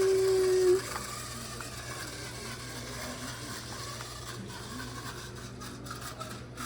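Off-road RC car's motor whining at a steady pitch at speed, cutting off suddenly about a second in, followed by faint mechanical clicking and rattling.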